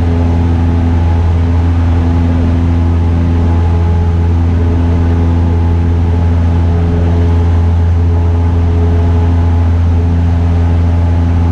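Single-engine light airplane's engine and propeller droning steadily in cruise, heard inside the cabin as a loud, even low hum with a steady set of overtones.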